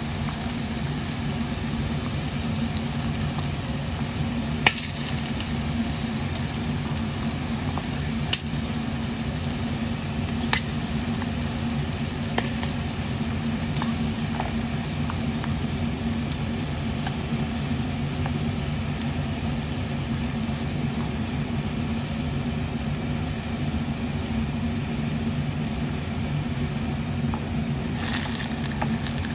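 Battered prawns deep-frying in hot oil, a steady sizzle over a steady low hum, with a few sharp clicks scattered through.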